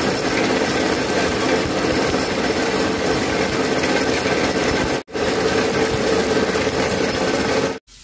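Whole roasted rice grains pouring out of a plastic bag into a plastic basin: a steady, loud rushing rattle. It drops out for an instant about five seconds in and cuts off just before the end.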